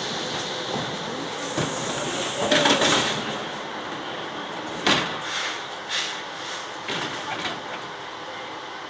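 ED4M electric multiple unit train: steady running noise, with a loud hiss about two and a half seconds in, then a sharp knock and a few smaller knocks.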